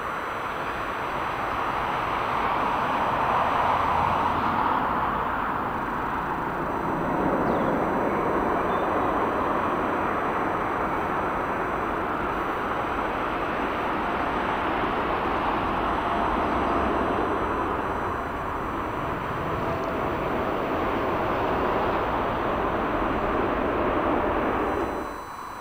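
Jet airliner arriving, its engines making a steady rushing noise that swells about four seconds in and again about eight seconds in, then cuts off abruptly near the end.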